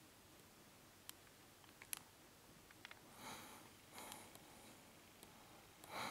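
Near silence: quiet room tone with a few faint ticks and three soft, brief swells of noise, the last near the end the loudest.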